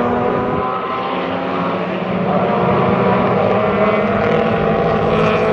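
Two classic race cars, a 1967 Datsun Fairlady 2000 with its 2.0-litre four-cylinder engine and a Porsche 911, running hard through a corner. Their engines blend into a steady multi-tone drone at fairly even revs.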